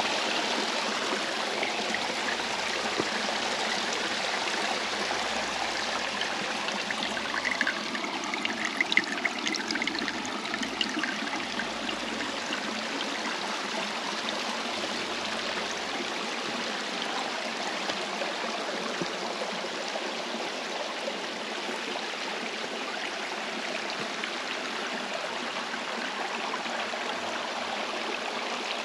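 Steady rushing of flowing water from a forest stream, with a few brief louder splashes about eight to eleven seconds in.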